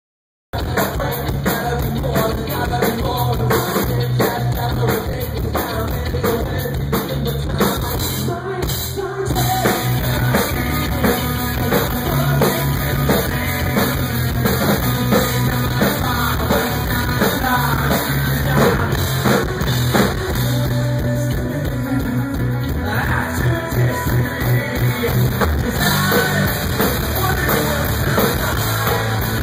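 Live rock band playing: electric guitar, bass guitar and a drum kit.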